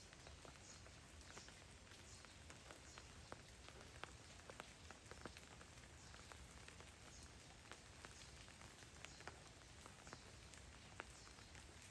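Faint rain: scattered, irregular raindrop ticks over a low, steady hiss.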